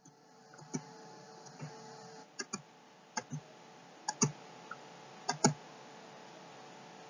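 Sharp clicks at a computer, mostly in close pairs about a second apart, over a steady low electrical hum.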